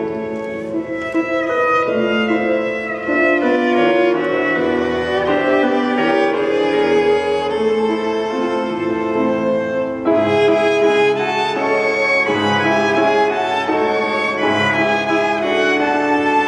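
Piano trio of violin, cello and grand piano playing a zamba, the Argentine folk dance, arranged for chamber trio, with the bowed violin prominent. The bass from cello and piano grows fuller about ten seconds in.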